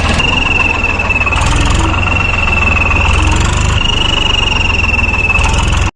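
Swaraj tractor's diesel engine idling with a steady high-pitched whistle over its low exhaust pulses, from a turbo whistle fitted in the exhaust silencer.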